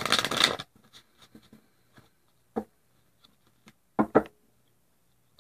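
A deck of tarot cards shuffled by hand in a short burst, then quiet card handling with a faint tap about two and a half seconds in. About four seconds in, a card drawn from the deck snaps twice.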